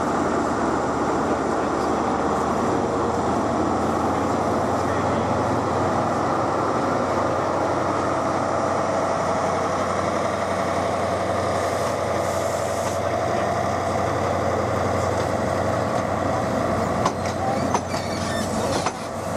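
Class 43 HST diesel power car running steadily with an engine whine while standing at the platform. Near the end, sharp clicks and knocks come in as the train draws away over the rail joints.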